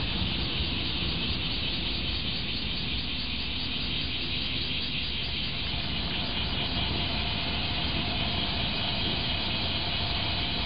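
Steady outdoor background noise: a constant high hiss over a low rumble, with no distinct events.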